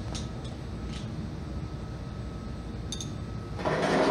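Car fender being handled and pressed against the body: a few faint clicks, then a short scraping rustle near the end. A steady hum runs underneath.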